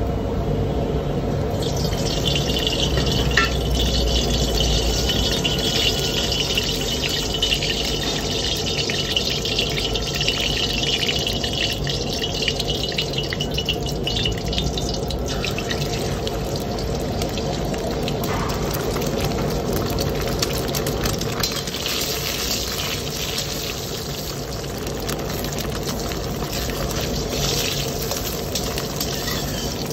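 Hot oil sizzling in a steel wok over a steady low burner rumble. Beaten egg goes into the oil about halfway through and fries, with a metal spatula scraping the wok near the end.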